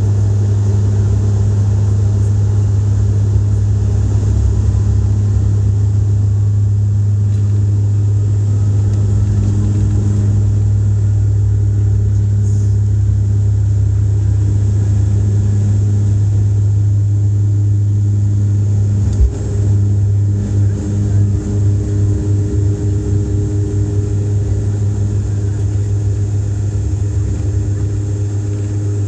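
Dash 8-Q400's Pratt & Whitney PW150A turboprop engines and six-blade propellers at takeoff power, heard from the cabin next to the engine: a loud, steady low drone through the takeoff roll and climb-out. About two-thirds of the way in there is a single sharp thump, after which the drone wavers in quick pulses.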